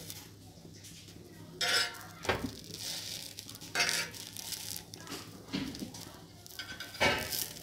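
Spatula scraping and knocking against a frying pan as an egg-and-flour pancake is rolled and turned, a few short sharp scrapes about two, four and seven seconds in, over a low steady hum.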